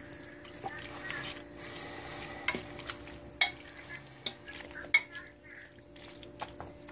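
Pulled pork being stirred into barbecue sauce in a pot: a soft wet mixing sound broken by several sharp knocks of the utensil against the pot.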